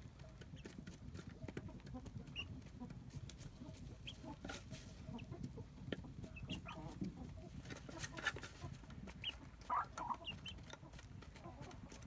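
Chickens clucking in short, scattered calls over faint farmyard background noise, with the loudest calls a little before and near ten seconds in.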